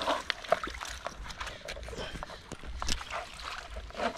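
Knife cutting and cracking into a spiny lobster's shell on a plastic cutting board: a run of irregular crunches and clicks, with water lapping at the shore underneath.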